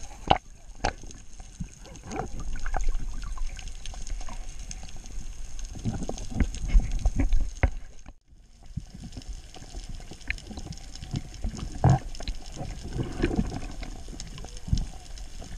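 Muffled underwater sound picked up by a GoPro in its waterproof housing: water moving and sloshing with a low rumble, and many scattered clicks and knocks. The sound drops out briefly about eight seconds in.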